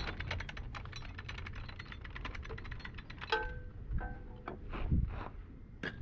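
Metal-on-metal workshop noise: a rapid run of light metallic clicks, about ten a second, for the first three seconds, then several sharper metal knocks, one of which rings briefly.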